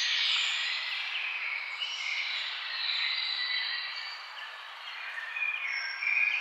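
Several songbirds singing and chirping at once, their high whistles and trills overlapping, over a steady background hiss.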